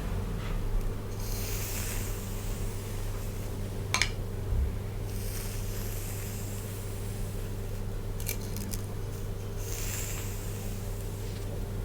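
Hair being brushed in soft swishing strokes, with a sharp click about four seconds in and a quick run of ticks near eight seconds, over a steady low hum.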